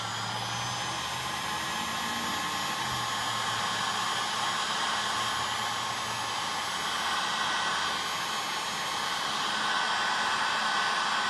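Handheld electric heat gun running steadily, blowing hot air.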